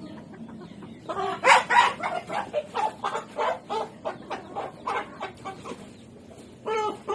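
Columbian Light Brahma chicken clucking in a quick run of short calls, about three a second, starting about a second in and fading off. A longer drawn-out call follows near the end.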